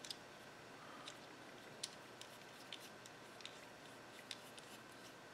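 Faint, scattered small ticks of metal airbrush parts being handled as the air cap is screwed on by hand over the nozzle, over near-silent room tone.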